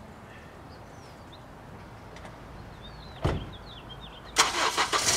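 A Honda CR-V's door slamming shut once, about three seconds in, with small birds chirping. Near the end, a louder run of sharp, rapid strokes begins.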